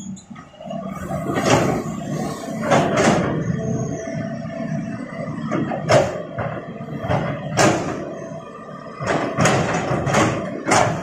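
A run of heavy knocks and thuds at irregular intervals over a steady low hum.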